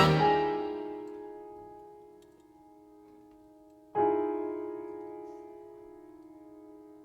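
A piano chord rings on as a loud full-band chord fades away at the start, then about four seconds in a new piano chord is struck and left to ring, slowly dying away.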